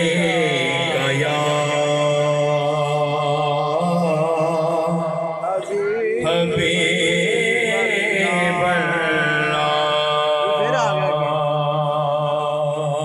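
A man chanting an Urdu naat into a microphone, holding long wavering notes that slide between pitches, with a short break about six seconds in. A steady low hum runs underneath.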